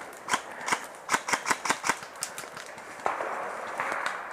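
Airsoft guns firing a rapid, uneven string of sharp pops, about a dozen shots in the first two and a half seconds, followed by about a second of rustling hiss.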